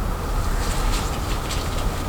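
Steady low rumbling noise, like a fan or heater running. Over it come a few faint light clicks, as of plastic snap-on hair rollers being handled.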